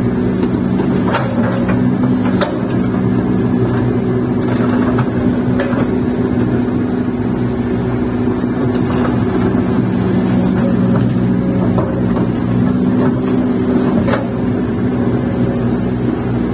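Kobelco hydraulic excavator's diesel engine running steadily as it digs sand, heard from inside the cab, with a few sharp knocks scattered through.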